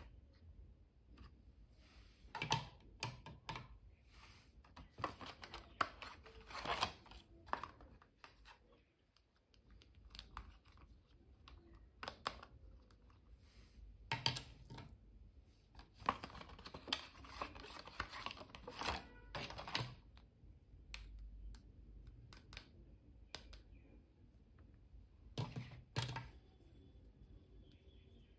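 Hands handling plastic highlighter pens and clear plastic packaging: irregular clusters of light plastic clicks, taps and rustles, with short pauses between them.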